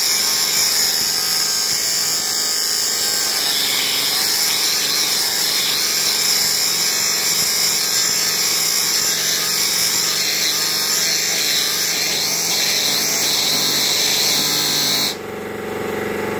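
Compressed air from an air-filter cleaning wand blasting out through a large cylindrical air filter, blowing the dust out of it: a loud steady hiss that cuts off suddenly near the end, leaving a quieter hum.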